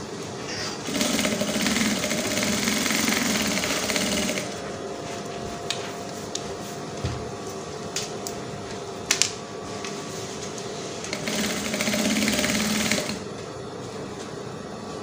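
Sewing machine stitching in two runs, a longer one of about three and a half seconds and a shorter one near the end, with quieter fabric handling and a couple of sharp clicks in the pause between.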